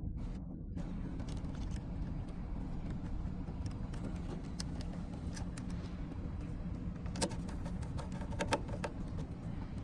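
Small metallic clicks and rattles of wires and a tool being worked at a contactor's terminals while a lead is connected, several clicks coming close together about seven to eight and a half seconds in, over a steady low hum.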